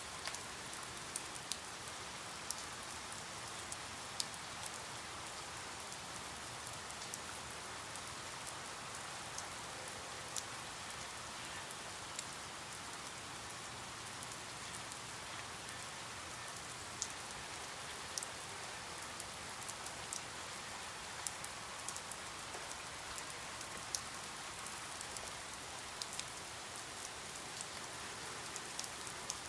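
Steady rain falling on a surface, an even hiss with individual drops ticking sharply a few times a second.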